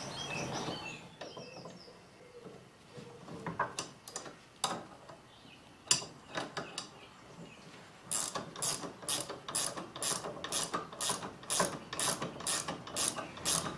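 Hand ratchet spanner clicking as it is worked back and forth, undoing a bolt on a lawn tractor's front steering joint. A few separate clicks and knocks at first, then past the middle a steady run of about three clicks a second.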